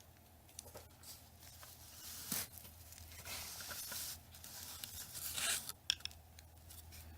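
Soft rustling and scraping of small objects being handled and moved about, with a few light clicks near the end.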